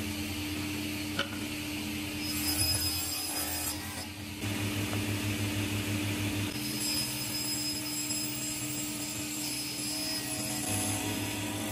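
Power tool running and cutting wood, a steady machine hum with sawing noise over it; the sound changes abruptly a few times.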